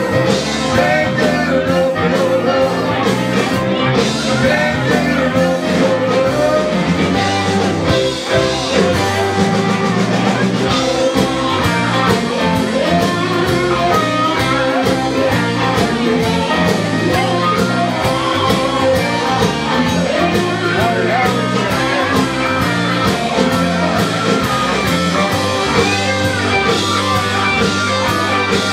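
Live blues-rock band playing loudly, with electric guitar, a steady drum beat and a singer.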